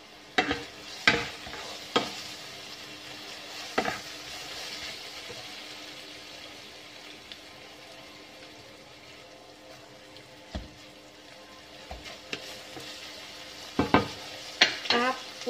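Chicken strips sizzling in a nonstick wok while a wooden spatula stirs them, scraping and knocking against the pan. There are several sharp knocks in the first few seconds and again near the end.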